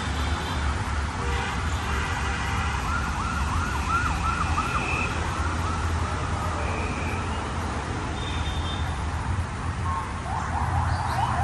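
Steady low rumble of city road traffic. A few seconds in comes a run of about ten quick rising-and-falling whoops, with a few short high tones and more rising notes near the end.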